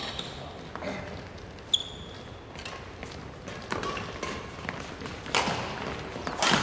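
Badminton play on a wooden hall floor: sharp racket strikes on a shuttlecock, the loudest two about a second apart near the end, with a brief sneaker squeak near 2 s.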